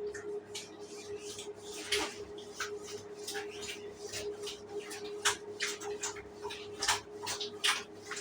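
Shower water splashing in irregular spatters and drips over a steady low hum.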